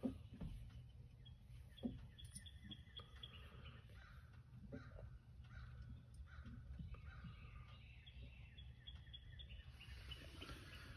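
Faint outdoor ambience: birds calling with short repeated chirps over a low steady rumble, with a few soft knocks.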